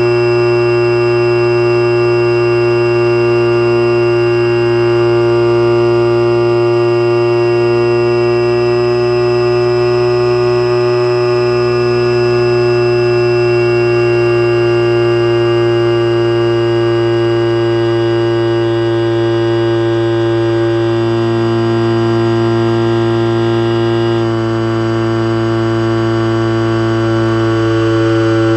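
Electric motor and propeller of an Eagle II RC trainer running steadily, heard from a camera on the plane: a steady hum with a whine above it, the pitch shifting slightly and the loudness dipping a little about 24 seconds in.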